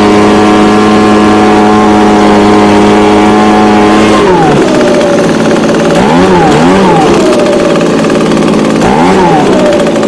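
Echo ES250 shred-and-vac blower's small two-stroke engine running steadily at high speed, then dropping to idle about four seconds in and being revved up briefly twice.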